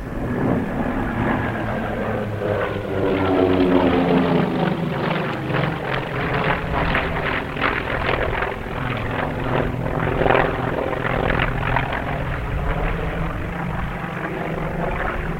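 Airplane engine sound from an aircraft flying past, its pitch falling over the first few seconds and then running on steadily with a pulsing, throbbing texture.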